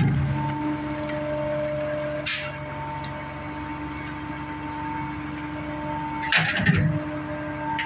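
Rear-loader garbage truck's hydraulic packer running, with a steady engine and hydraulic drone as the packer blade sweeps down through the hopper. There is a short hiss about two seconds in, and a brief burst of crunching near the end as the blade presses into the bagged trash.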